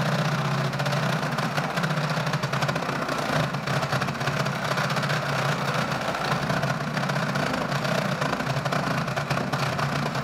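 Cordless drill boring a 1¼-inch hole through timber, running steadily under load, then stopping abruptly at the end.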